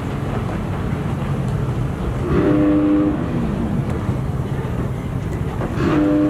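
Motocross bike engines running in a steady low drone. Two short flat-pitched tones sound over it, one lasting under a second near the middle and a briefer one near the end.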